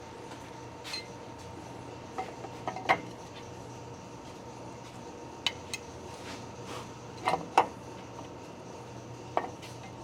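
Scattered light metallic clinks and taps of drum brake shoes, hardware and hand tools being handled, about eight in all, with a pair close together a little past halfway. A steady faint hum runs underneath.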